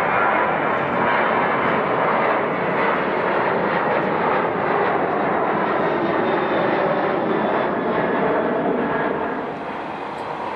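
Jet airliner engines running with a steady, loud rushing noise that eases off somewhat near the end.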